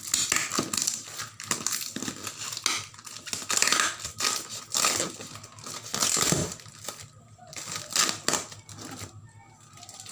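Packaging crinkling and rustling as it is handled, in irregular bursts.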